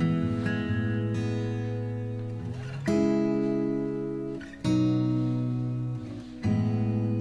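Background music: acoustic guitar chords, each struck and left to ring out, with a new chord about every two seconds.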